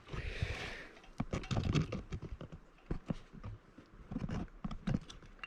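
Irregular light taps and knocks of handling, with a brief hiss in the first second.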